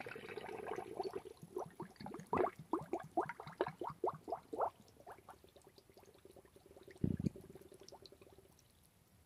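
Small water splashes and sloshing as a hand and a plastic-bottle fish trap move just under the surface of a water tank: a quick, irregular run of little splashes for the first few seconds, then a single dull thump about seven seconds in.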